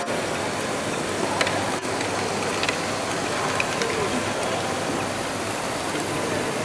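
LEGO Great Ball Contraption modules running amid the background chatter of a busy hall: a steady noisy din with a few sharp clicks from balls and moving parts.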